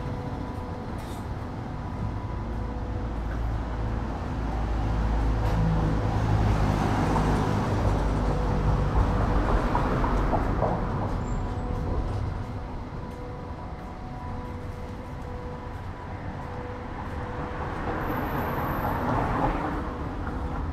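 Train running: a steady low rumble that swells louder twice, with a faint steady hum through it.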